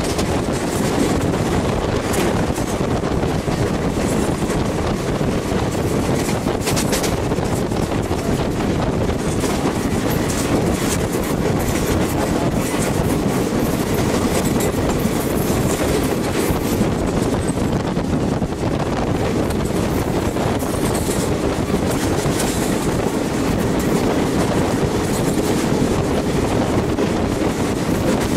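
Passenger train running at speed, heard from inside a carriage: a steady rumble of wheels on the rails with occasional short clicks.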